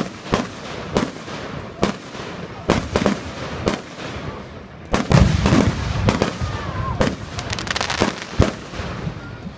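Fireworks going off: sharp bangs about once a second at first, then from about halfway a louder, thicker run of pops and crackling, ending with one last strong bang.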